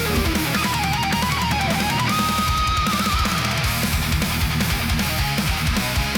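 Heavy metal instrumental music: distorted electric guitars over fast drums, with a lead guitar melody that wavers and then holds a high note about two seconds in.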